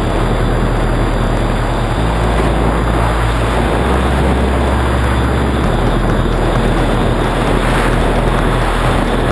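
Steady rush of wind and the drone of an electric motor and propeller, recorded by a GoPro aboard a foam RC flying wing in flight.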